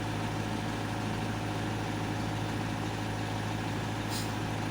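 Heavy diesel engine idling steadily, with a short high hiss about four seconds in.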